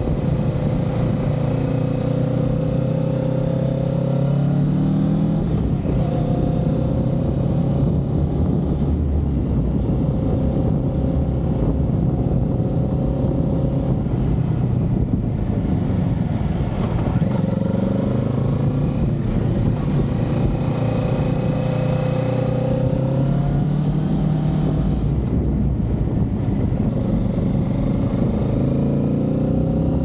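Kawasaki Z650's parallel-twin engine running under way, holding a steady pitch for stretches and rising in pitch several times as it accelerates through the gears.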